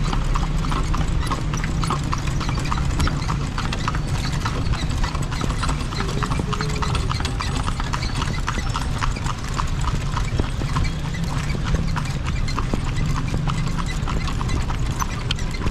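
A kalesa horse's hooves clip-clopping at a steady pace on the street, pulling the carriage, over a steady low rumble.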